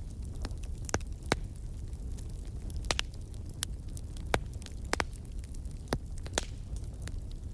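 Wood fire crackling, with irregular sharp pops, several a second at times, over a steady low rumble.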